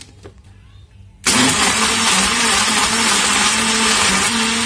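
Countertop electric blender switched on about a second in and running at full speed, blending a milkshake of apricots, milk and ice.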